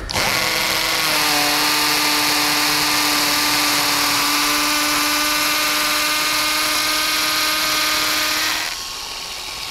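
Bosch GSB 120-LI 12 V cordless impact drill running steadily under load with a constant motor whine as a masonry bit bores into a plastered brick wall. Near the end the sound drops to a quieter level.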